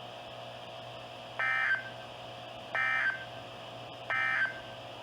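Emergency Alert System end-of-message signal: three short bursts of SAME digital data tones, about a second and a half apart, over a faint steady hum.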